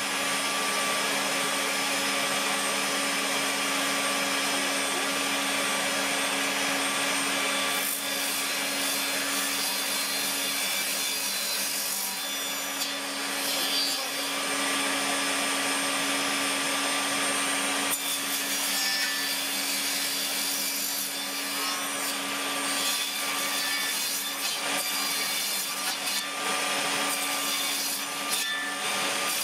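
Bosch table saw running steadily, its motor holding a constant hum while small pieces of wood are fed through the blade at an angle with the mitre gauge.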